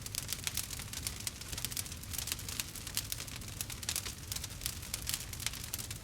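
Campfire of burning firewood crackling: rapid, irregular snaps and pops over a low, steady rumble.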